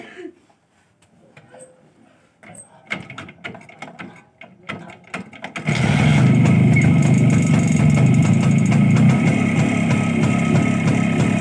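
Rajdoot 175 cc single-cylinder two-stroke motorcycle being started: a few mechanical clicks and knocks, then the engine catches at about six seconds and runs steadily and loudly.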